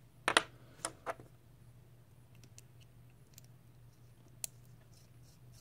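Small metal parts of a rebuildable tank atomizer (the deck and its chimney) clicking and knocking as they are handled and fitted together: three sharp clicks in the first second or so, then a few faint ticks.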